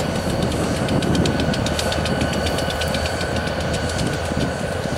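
EMD GP40 diesel locomotives idling, their two-stroke V16 engines making a steady low rumble with a rapid clatter and a faint steady whine over it.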